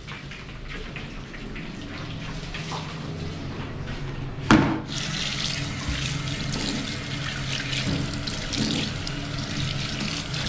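Tap water running into a sink while a bunch of purslane is rinsed under it by hand. There is one sharp knock about halfway through, and after it the water runs louder.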